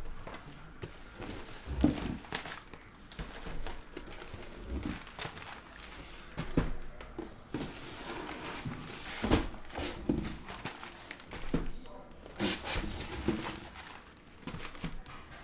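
Shrink-wrapped 2022 Bowman Draft Super Jumbo hobby boxes being lifted out of their cardboard case and set down on the table: a string of dull thumps and knocks with plastic wrap crinkling between them.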